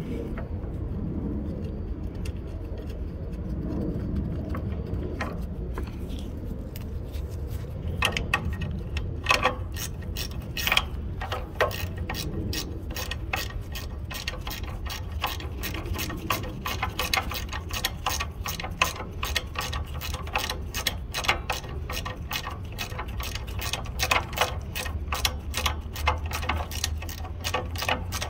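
Hand ratchet wrench clicking as the two bolts holding a truck's PM sensor are run in and tightened. A few scattered clicks come first, then rapid, even clicking, over a steady low hum.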